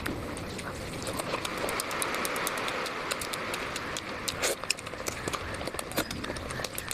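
Close-up eating sounds of rice and curry being chewed: a quick, uneven run of wet clicks and smacks from the mouth.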